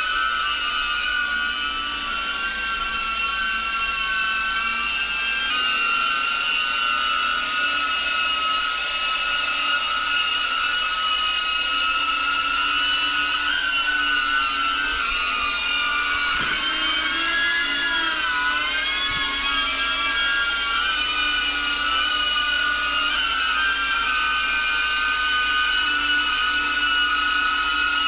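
DJI Avata FPV drone's ducted propellers and motors whining steadily in flight, a high-pitched buzz that dips and rises in pitch with the throttle about two-thirds of the way through.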